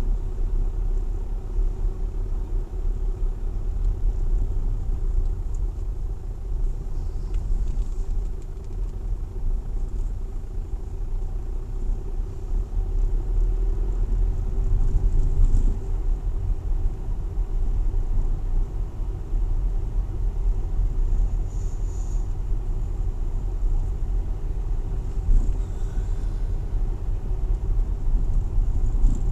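Car driving slowly along a narrow rural lane, heard from inside the cabin: a steady low rumble of engine and road noise with a steady hum underneath.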